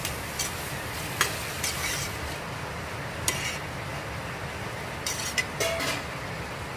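Metal ladle stirring chopped chicken gizzard and liver in a stainless steel pot, with scattered clinks and scrapes against the pot, a cluster of them about five seconds in, over a steady sizzle from the cooking mixture.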